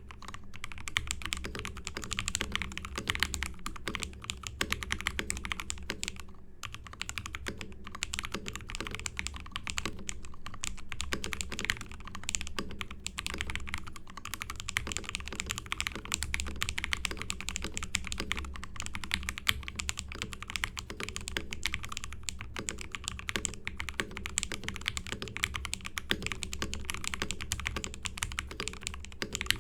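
Continuous typing on a Lapis60 acrylic gasket-mount 60% mechanical keyboard built with lubed JWICK Ultimate Black switches, Drop DCP keycaps and the Tempest mod, giving a dense key sound. A short pause about six and a half seconds in.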